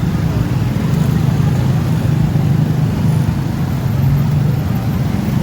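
Steady low rumble of road traffic, engines running continuously with no sharp bangs.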